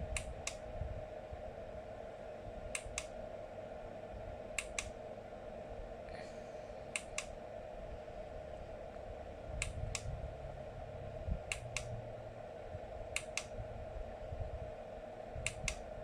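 A small push button on a 12-LED emergency flash light clicking, a quick double click (press and release) about every two seconds, eight times, stepping the light through its flash patterns. A steady hum runs underneath.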